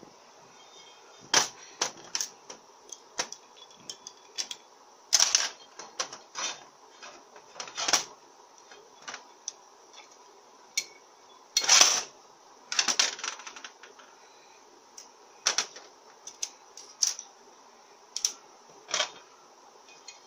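Irregular metal clicks, taps and small clatters from an FN4A-EL automatic transmission's valve body being worked over: the valves pushed and slid in their bores with a small screwdriver to test that they move freely, and the aluminium valve body handled and set down on a metal bench. The loudest cluster of clatter comes about halfway through.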